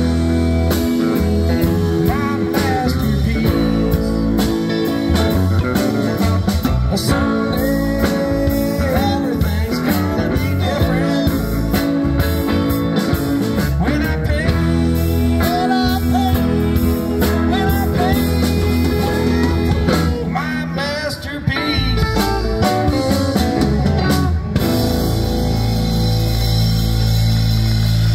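Live rock band playing: electric guitars, bass, keyboard and drum kit, with a lead guitar bending notes in the middle, closing on a long held chord in the last few seconds.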